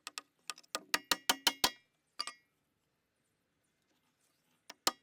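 A quick run of about six sharp knocks with a short metallic ring, then a single knock about two seconds in and two more near the end: the wooden panels of a pallet-wood beehive being knocked together during assembly.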